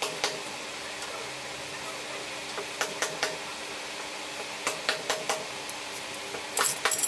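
Metal clanks and knocks of steel parts being struck or handled, some with a brief ring. They come in small groups: one near the start, a run about three seconds in, more about five seconds in, and a dense cluster near the end. A faint steady hum runs underneath.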